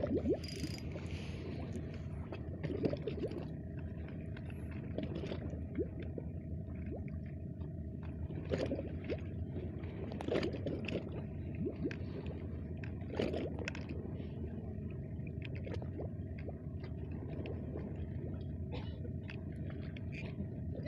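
Water lapping and gurgling under a steady low drone, with short squeaks and creaks scattered through.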